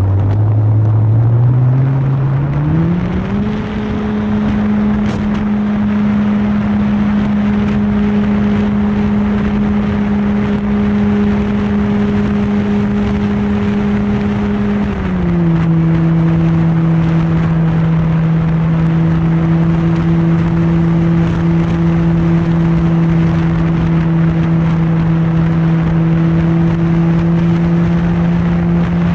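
Remote-controlled PC-21 model plane's motor and propeller running. The pitch climbs in steps over the first few seconds as the throttle opens, holds steady, then drops a little about fifteen seconds in, over a constant rushing noise.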